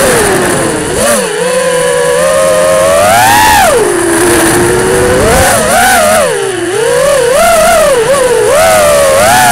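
FPV quadcopter's brushless motors and propellers whining loudly, the pitch rising and falling constantly with the throttle, with a sharp climb and fall a little over three seconds in.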